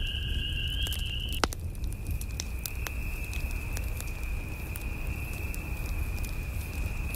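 Log fire crackling in a fireplace, irregular small pops over a low rumble of flames, with one louder pop about a second and a half in. A steady high-pitched tone sounds throughout and steps slightly lower at that pop.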